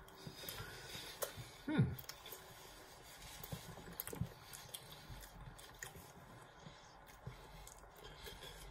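Faint chewing and mouth sounds of people eating soft baked cinnamon rolls, with a short falling sound a little under two seconds in.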